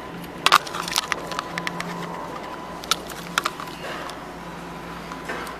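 Irregular knocks and clicks from footsteps on a hard floor and a hand-held camera being jostled while walking, the sharpest about half a second in. A faint steady thin tone and a low hum run underneath.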